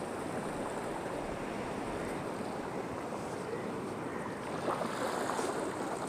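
Steady wash of sea surf breaking on a sandy beach, swelling slightly louder about five seconds in.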